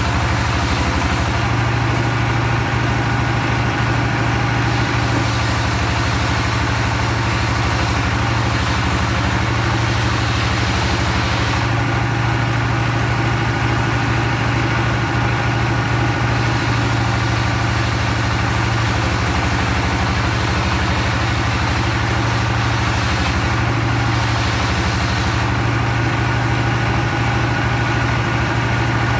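Circular sawmill machinery running steadily, a constant loud mechanical drone with a strong low hum. The high hiss on top fades and returns a few times.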